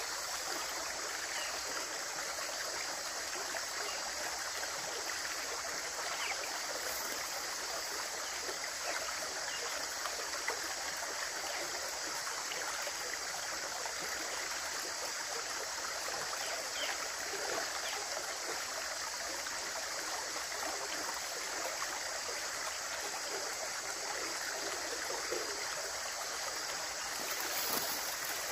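Running water flowing steadily, a continuous even rush.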